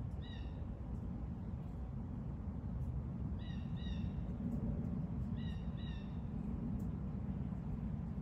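A bird calling: one short, harsh, slightly falling call just after the start, then a pair about three and a half seconds in and another pair about five and a half seconds in. A steady low rumble runs underneath.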